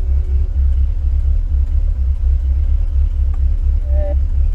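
A loud, steady low rumble, with a brief faint snatch of car radio sound about four seconds in while the radio is being tuned.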